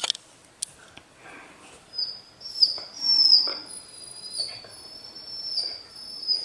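Siberian husky puppy whining in a high, thin pitch, several long drawn-out whines from about two seconds in, sliding slightly downward; a puppy in discomfort just back from neutering surgery.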